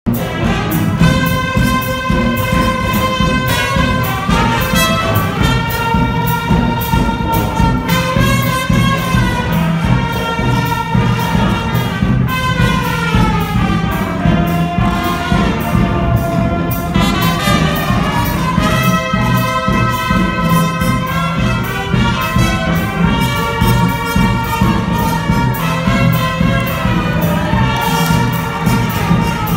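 Brass instruments playing slow music in long held notes that change every couple of seconds, over a steady low drone, with a note sliding down about halfway through.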